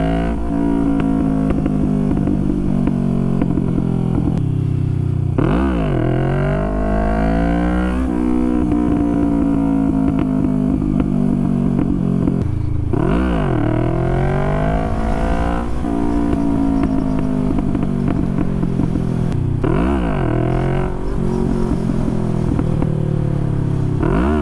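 Motorcycle engine revved hard again and again, each time a sharp climb in pitch followed by a long slow fall, about every six or seven seconds: wheelie attempts, with the revs maxed out to lift the front wheel.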